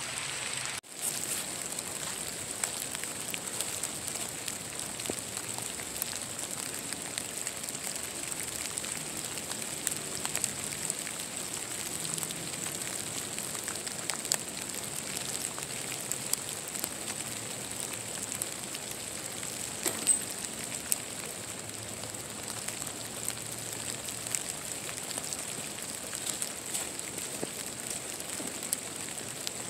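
Steady light rain, with drops landing as many small ticks against a constant hiss, and a couple of louder knocks about twenty seconds in.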